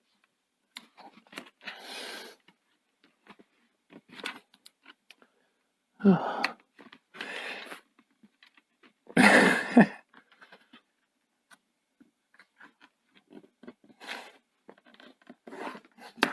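A plastic plectrum prying a Chromebook's plastic base away from its metal cover: scraping along the seam, with many small clicks and crackles as the clips let go. Several longer scraping bursts come through, the loudest about nine to ten seconds in.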